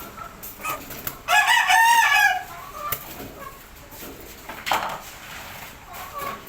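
A rooster crowing once, a loud call of about a second, with a few short, fainter sounds before and after it.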